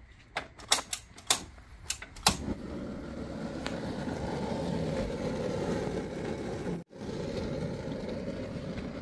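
Propane camp stove: a series of sharp clicks over the first couple of seconds as the burner is lit, then the gas flame's steady rush under a wok of oil as it heats.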